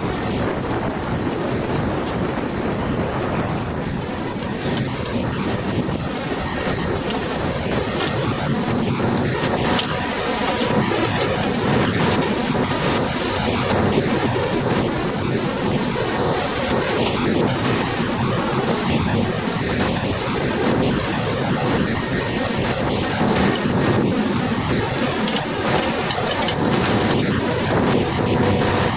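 Hydraulic knuckle-boom log grapple crane at work: a steady mechanical drone from its power unit and hydraulics, with a faint steady whine over it.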